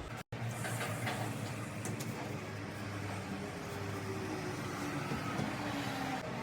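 Steady low hum of distant traffic coming in through an open window, with a faint engine note that slowly falls in pitch around the middle. The sound cuts out completely for a moment just after the start.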